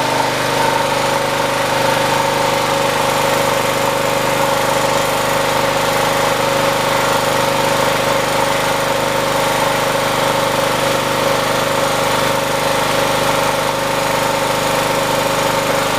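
Mellga MG2500CL portable generator's engine running at a steady speed under a 1000-watt test load, with an even pitch throughout.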